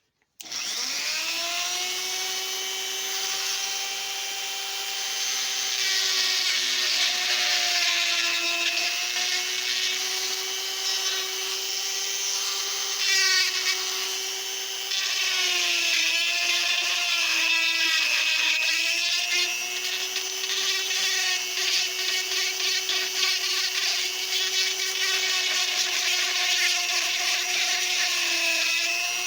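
Die grinder with a narrow cutter spinning up and running with a steady high whine, grinding out the action inlet of a wooden rifle stock. Its pitch sags and wavers in the middle as the cutter bites under load, then steadies again.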